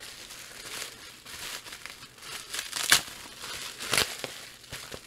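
Bubble wrap and plastic packing crinkling as it is handled, with two sharper crackles about three and four seconds in.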